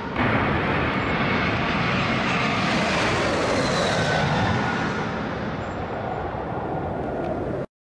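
Jet airliner passing low overhead on approach to land: a loud, steady jet engine roar with a faint whine that slides in pitch. It cuts off suddenly near the end.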